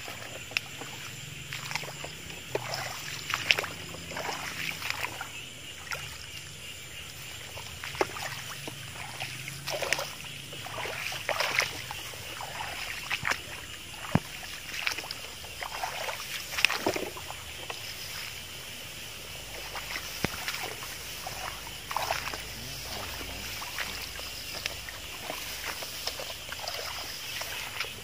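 Irregular splashing and swishing footsteps of people wading through wet grass and shallow field water, over a steady high chorus of frogs calling.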